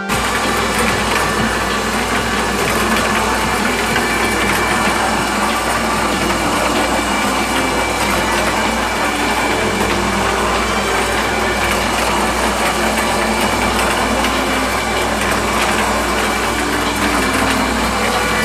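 Electric motor-driven drum feed mixer running steadily, a low constant hum under the hiss and rattle of dry granular feed tumbling in the drum and pouring out down the metal chute.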